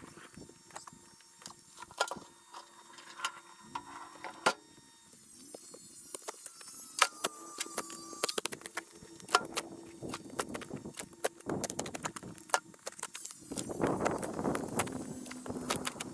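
Shovel digging in soil and stones, possibly in sped-up footage: an irregular run of sharp clicks and scrapes from the blade, with denser scraping near the end.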